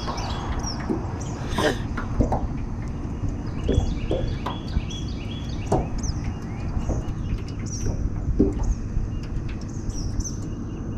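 Birds singing outdoors in repeated runs of short, stepped chirps. Under them runs a steady low rumble, with a few scattered short clicks or knocks.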